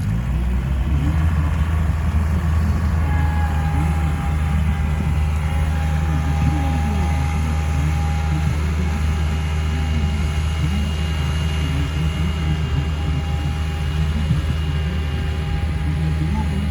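Farm machine's engine running steadily at an even speed, with faint voices in the background.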